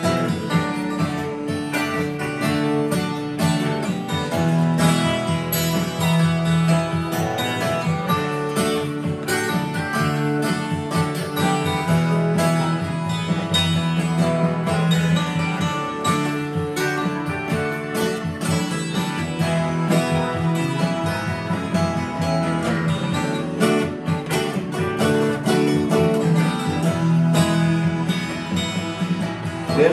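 Acoustic guitar strummed steadily, chords rung out in an even rhythm in an instrumental stretch of a folk song, with no singing.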